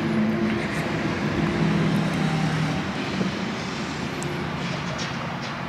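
A motor engine's low, steady drone with a rushing noise, starting abruptly and easing off a little after about three seconds.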